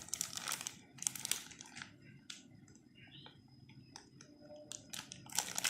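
Light clicks and crinkling of plastic toy packaging and parts being handled, in short bursts near the start and again near the end, with a few single clicks between.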